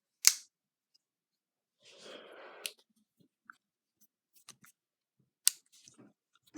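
Sharp clicks of a thumb stud folding pocket knife being handled, one just after the start and one past the middle, with faint ticks between. About two seconds in, a short breathy hiss.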